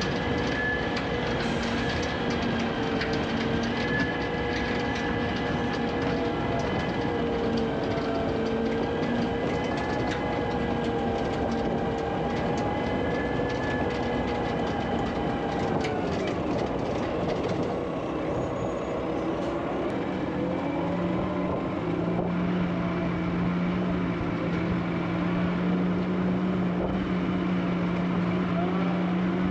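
Engine of a feed mixer truck running steadily as it drives along the feed bunk. Its pitch drops about halfway through, and a steady lower hum comes in near the end.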